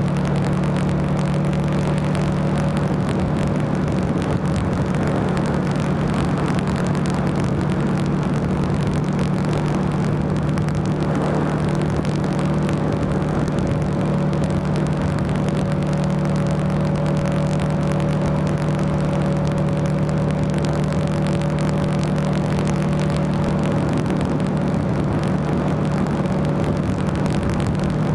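Buell XB9SX's air-cooled V-twin engine running at a steady cruise, with wind and road noise over it.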